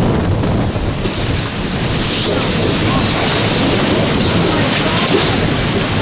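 Hurricane eyewall winds blowing steadily with driving rain, gusting against the microphone.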